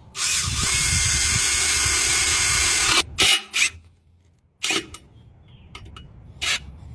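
Power drill running steadily for about three seconds, then stopping abruptly, followed by a few short handling knocks.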